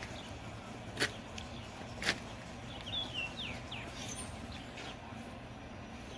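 Two sharp clicks about a second apart, then a few short, quick bird chirps, over a faint steady outdoor background hum.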